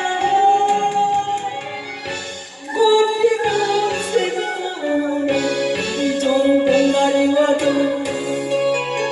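A singer's voice holding long sustained notes over a backing band, with a short break about two and a half seconds in before the next phrase begins.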